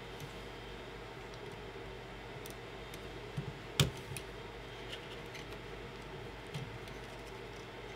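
Scattered light clicks and taps of hands handling wires and plastic parts at a 3D printer's extruder, with one sharper click about four seconds in, over a steady low hum.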